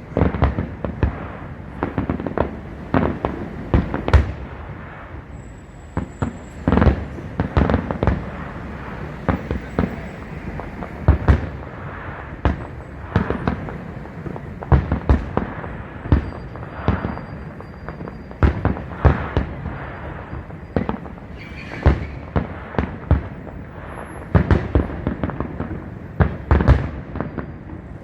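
Fireworks display: aerial shells bursting in a rapid, irregular series of bangs, several a second at times, over continuous crackling.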